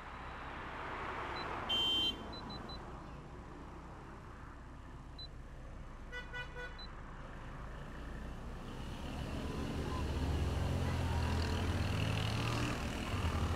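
Road vehicle horn tooting twice: a short loud beep about two seconds in and a fainter one around six seconds. From about nine seconds a vehicle engine grows louder as it approaches.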